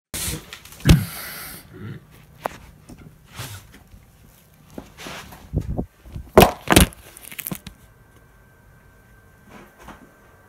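Handling noise from a handheld camera as it is moved and pointed at the sky: a short rustle at the start, a sharp knock about a second in, and two louder knocks close together at about six and a half seconds, with scattered smaller clicks between.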